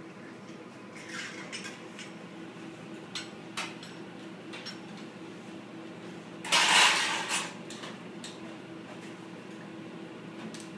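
Commercial kitchen work sounds: a steady low hum under scattered clinks and knocks of dishes and utensils, and a loud noisy rush lasting about a second a little past the middle.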